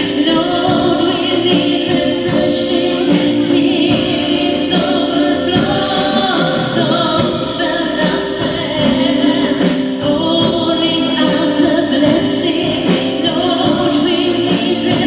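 A woman singing a song into a microphone with a live band of keyboard and drum kit.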